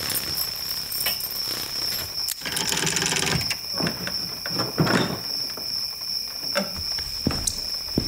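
Sound effects of a cellar door being unlocked and opened: a knock, a rattle about three seconds in, a creak near five seconds, then a couple of short clicks, over a steady high insect drone.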